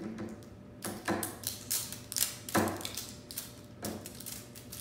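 Plastic wrapping of a small LOL Surprise toy ball being handled and peeled open: a string of sharp crackles and taps, about eight over a few seconds.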